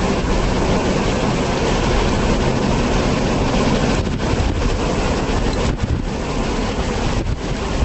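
Wind buffeting the microphone over the steady running of an off-road vehicle crossing desert sand. The noise dips briefly a few times in the second half.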